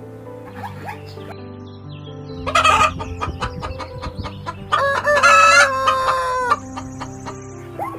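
A rooster crowing once, a single long pitched call of about two seconds that starts around the middle. It is preceded by a short noisy squawk and a series of quick clicks. Background music with sustained notes plays throughout.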